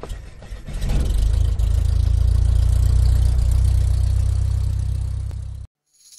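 Propeller-plane engine starting, as a stock sound effect: a few faint clicks, then the engine catches about a second in and runs with a steady low drone, cutting off suddenly near the end.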